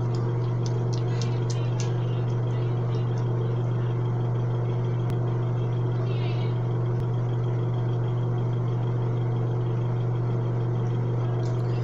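Steady low motor hum. About six seconds in, faint brief rubbing of hands spreading face cleanser over the skin.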